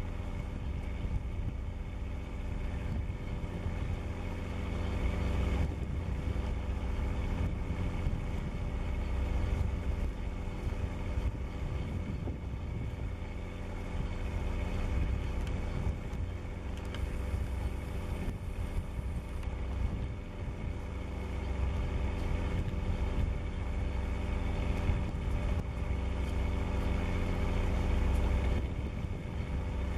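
Cruise ship's engine running steadily: a constant low rumble with an even machinery hum over it.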